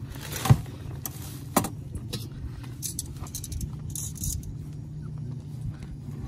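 Metal cooking tongs clinking against a frying pan and camp stove: a few sharp clinks, the loudest about half a second in, over a steady low hum.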